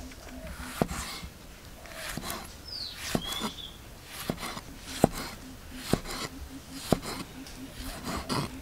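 A large kitchen knife slicing a tomato into wedges on a chopping board, the blade knocking sharply on the board about once a second. A bird gives one short falling whistle partway through.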